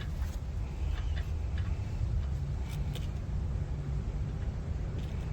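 A few light clicks and taps of hands and tools working on an oxygen sensor and its connector, over a steady low rumble.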